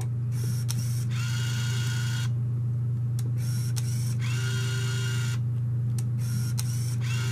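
Canon Sure Shot 80 Tele compact 35mm film camera taking three pictures about three seconds apart. Each is a soft shutter click followed by about a second of the built-in motor whirring as it winds the film on to the next frame. A steady low hum runs underneath.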